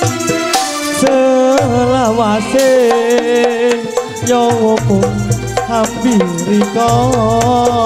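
Live reog campursari ensemble music: hand drums strike a busy rhythm under a wavering, sliding melodic lead. Deep low notes sound every two to three seconds.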